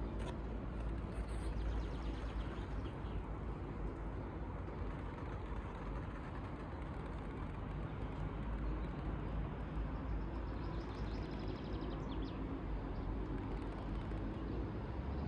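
Steady outdoor background noise with a low rumble, and a few faint high chirps, like birds, near the start and again about two-thirds of the way through.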